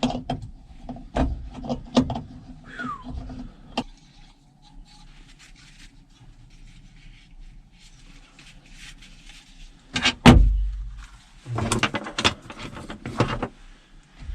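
Gear being handled and set down: a quick series of clicks and knocks, a short squeak, then one heavy thump with a low boom about ten seconds in, followed by a run of clattering.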